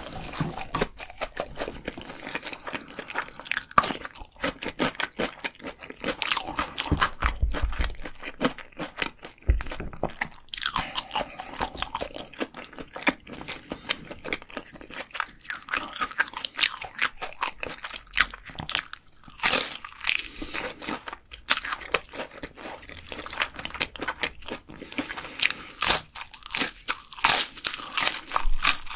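Close-miked eating: crisp deep-fried food, seen as a fried dumpling, bitten and chewed in irregular runs of crunches, with wet chewing between them.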